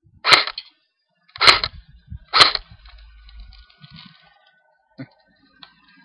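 Crosman R72 battery-powered airsoft rifle firing three single semi-auto shots, each a sharp crack, about a second apart.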